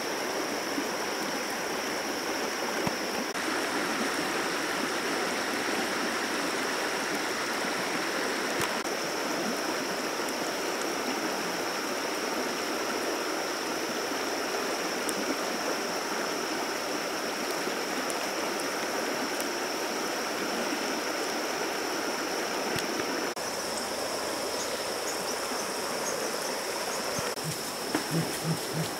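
River water rushing steadily over a rocky, shallow bed. A steady high-pitched tone runs along with it, and a few short knocks come near the end.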